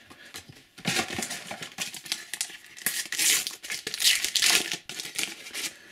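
A foil Panini sticker packet crinkling and crackling in the hands as it is handled and opened, in irregular bursts that start about a second in and stop shortly before the end.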